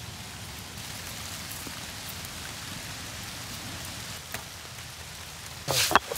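Steady hiss of rain falling. Near the end, a stone roller starts scraping loudly back and forth over a wet stone grinding slab as seeds are ground.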